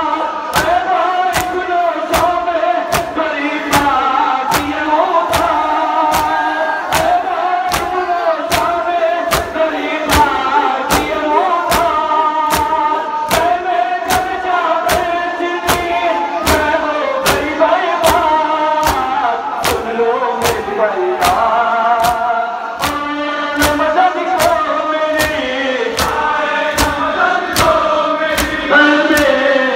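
Men's voices chanting a Shia nauha (mourning dirge) in unison, marked by the sharp, even slaps of hands on bare chests (matam), about three slaps every two seconds.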